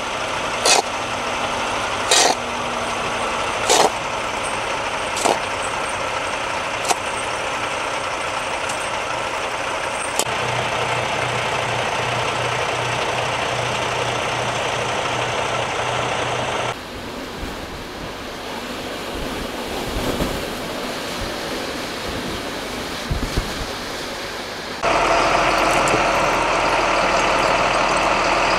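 Semi-truck diesel engines idling, in several short cuts. In the first cut a sharp click repeats about every one and a half seconds. A closer, low steady engine hum follows. Near the end a louder heavy engine runs steadily.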